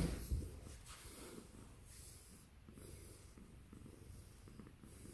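Domestic cat purring quietly, close to the microphone, with a brief rustle of fleece fabric at the start.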